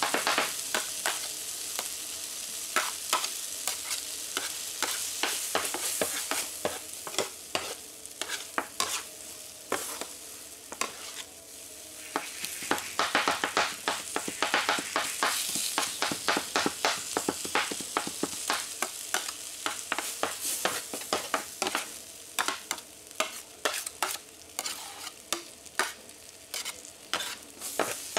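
Fried rice sizzling on a teppanyaki griddle while metal spatulas chop and scrape through it in rapid, irregular clacks.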